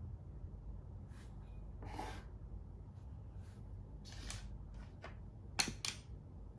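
Plastic makruk (Thai chess) pieces handled on a board: a few soft slides and rustles, then two sharp clicks close together near the end as pieces are set down, the second part of a capture.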